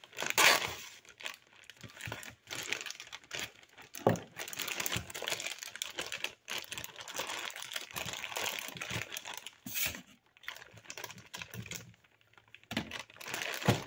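Plastic frozen pizza-roll bag crinkling and crackling as it is handled and pulled at by hand to get it open, with a lull of about two seconds near the end.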